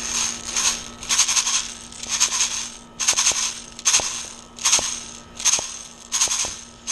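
Airsoft BBs rattling inside a magazine in regular strokes, about one a second. Each stroke is a short, bright rattle with a small click.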